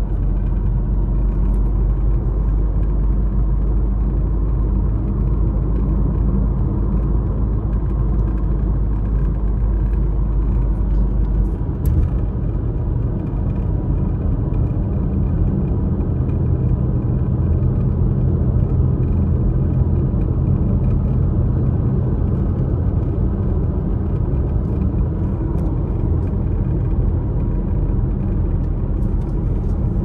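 Steady road noise of a car heard from inside while driving: a continuous low rumble of engine and tyres. About twelve seconds in, the deepest part of the rumble shifts, with a brief click at that moment.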